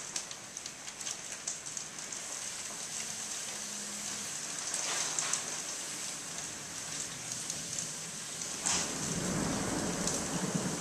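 Steady rain falling, with scattered drops ticking close by. Near the end, thunder breaks suddenly and rolls on in a low rumble.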